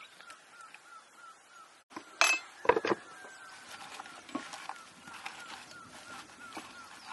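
Chunks of potato and eggplant knocked and set by hand into a clay bowl: two sharp knocks shortly after two seconds in, then lighter knocks. A rapid chirping runs behind, about three chirps a second.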